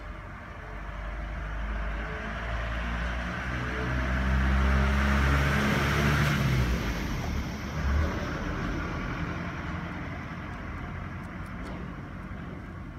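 A motor vehicle passing close by: engine and tyre noise build up, are loudest about five seconds in, then fade away. A short thump comes about eight seconds in.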